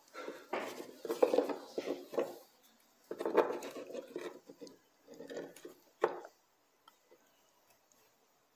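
Small hard plastic objects are handled on a bench: a smartphone battery and multimeter test leads being picked up and moved, making bursts of light clatter and scraping. A sharp click about six seconds in.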